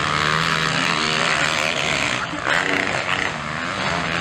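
Several motocross bikes' engines revving up and down as the riders brake, turn and accelerate through a dirt corner, overlapping one another.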